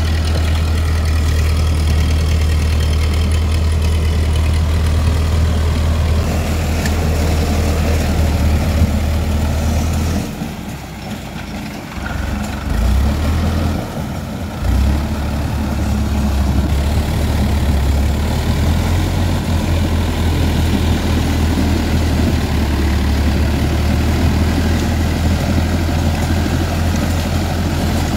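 Powertrac Euro 55 tractor's diesel engine running steadily under load, pulling a rotavator through wet mud, as a strong low drone. Around the middle it drops quieter and uneven for a few seconds, then settles back to the steady drone.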